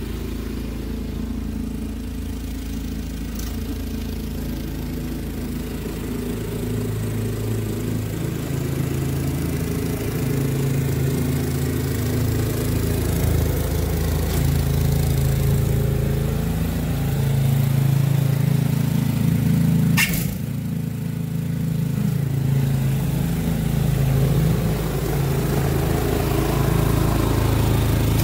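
Toro SnowMaster 824 QXE snowblower's single-cylinder four-stroke engine running steadily under load while its auger throws snow, growing louder as the machine comes closer. One sharp click about twenty seconds in.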